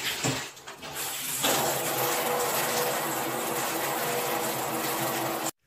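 Shower running: a steady hiss of spraying water with a faint hum under it, growing louder about a second and a half in and cut off abruptly near the end.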